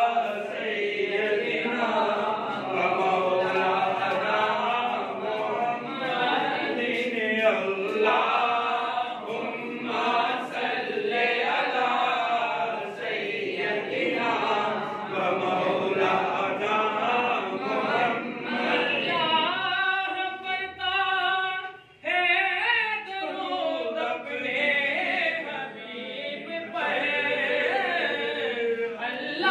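A group of men's voices chanting a devotional chant together without instruments. About two-thirds of the way through, one voice holds a long note, then there is a brief pause before the group carries on.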